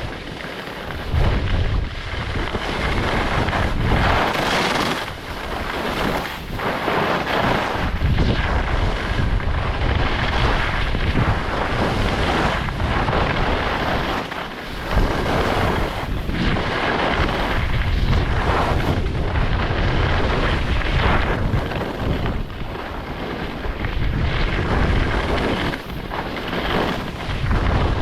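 Strong wind blowing over the microphone in gusts, buffeting it with a deep rumble under a rushing hiss.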